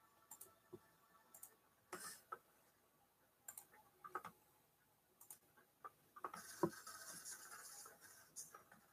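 Near silence: room tone with faint, scattered clicks and taps, and a brief faint hiss a little after the middle.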